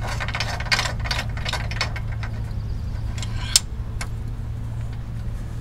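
Light metal clicks and clinks of hand tools as a bearing puller is fitted to a rear axle bearing: a quick run of clicks over the first two seconds, then a few single sharp clicks, over a steady low hum.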